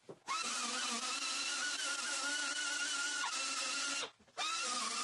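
Air-powered die grinder with a small abrasive disc grinding down welds over filled holes in a steel door skin: a steady high-pitched whine over a hiss. It cuts out about four seconds in, winding down, and starts again a moment later.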